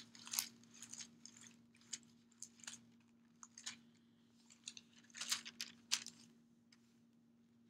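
Faint handling sounds at a desk: scattered small clicks and brief rustles, with a short cluster about five seconds in, over a steady low hum.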